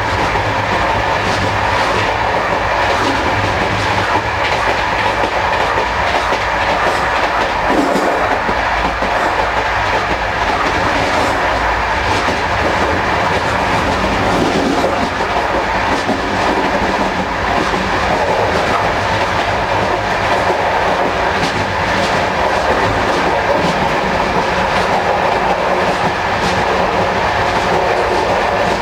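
Running noise of a Corail passenger coach on a moving train, heard from the gangway connection between two coaches: a loud, steady rumble of wheels and track with the clickety-clack of wheels over rail joints.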